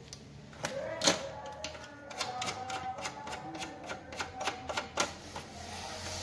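Plastic panel indicator lamps clicking and tapping against a sheet-metal panel door as they are handled and seated in their mounting holes. An irregular run of small sharp clicks, about three or four a second, starts about half a second in and stops a little after five seconds, the loudest near one second.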